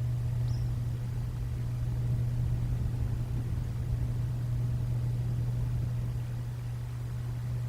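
Steady low droning hum, with one faint short high chirp about half a second in.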